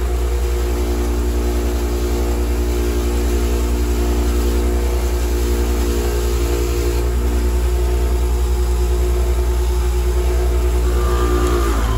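Delta 6-inch bench grinder running steadily with a wire wheel, its motor humming while a welding ground-clamp cable lug and its bolt are held against the wheel to scrub the connections clean for a good welding ground.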